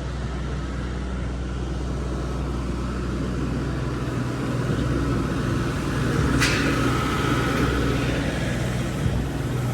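Diesel engine of a concrete pump truck running steadily, with a short sharp hiss about six and a half seconds in.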